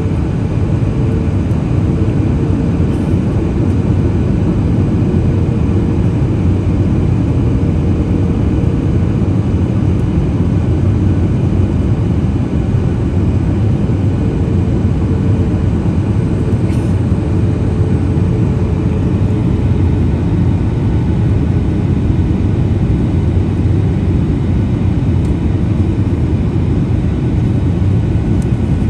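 Steady cabin noise inside a Boeing 737 MAX 8 airliner in flight: an even low rumble of airflow and its CFM LEAP-1B engines, with a faint steady hum underneath.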